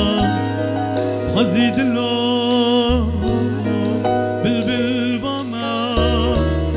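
Live Kurdish song: a male voice sings with wavering, ornamented vibrato over electronic keyboards, electric guitar and a steady bass line.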